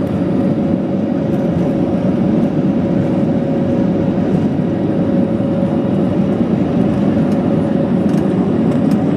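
Jet engine noise inside the passenger cabin of a Volaris Airbus A320-family airliner: a steady, loud rumble with a constant hum running through it.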